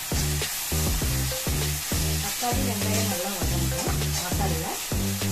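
Onion-tomato masala sizzling and frying in an iron pan while a metal spatula stirs and scrapes through it, over background music with a steady bass beat.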